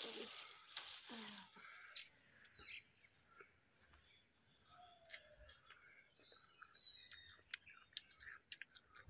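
Faint crisp bites and chewing of a freshly picked pear, many small clicks, with birds chirping now and then.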